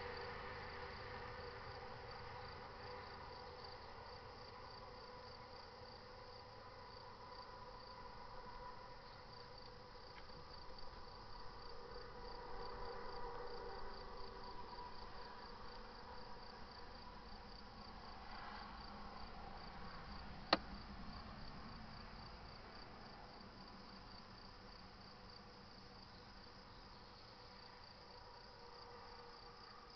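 Faint outdoor ambience dominated by rapid, evenly pulsed high-pitched insect chirping, over a low background rumble that swells and fades a little. A single sharp click about twenty seconds in.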